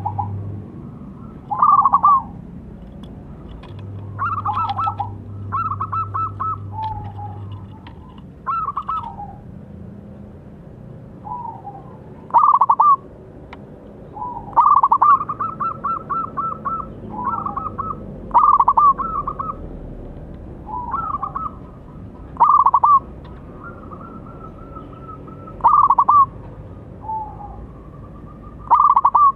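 Zebra dove (perkutut) cooing: short, rapidly trilled phrases with lower falling notes, repeated every second or two.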